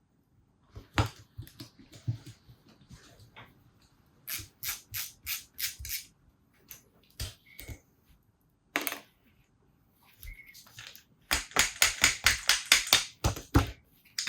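Runs of sharp clicks from hand tools working screws out of a carburettor: about half a dozen evenly spaced clicks, then a faster, louder run of about a dozen near the end.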